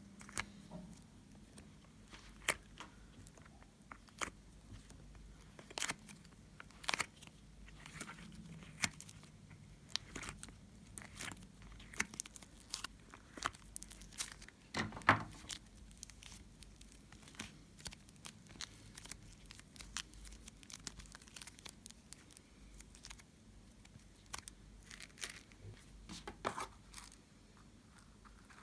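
Homemade slime mixed with foam being worked by hand, giving irregular sharp crackles and crunchy clicks, with one louder crunch about halfway through.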